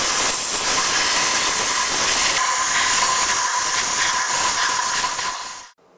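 Compressed-air blow gun hissing steadily as it blasts dirt and grit out of a motorcycle's spark plug well, with a faint whistle under the hiss; the blast cuts off suddenly near the end.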